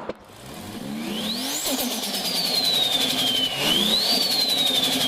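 Turbocharged car engine revved twice. Each time the turbo whistle rises sharply, then winds down slowly after lift-off, with a rapid fluttering chatter of turbo flutter.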